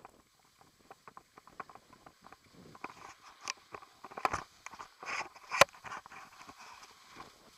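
Scraping and hissing of a board or skis sliding over packed snow as the rider descends, with irregular knocks and clicks of the camera being jostled. The scraping grows louder in the second half, and one sharp knock stands out about three quarters of the way through.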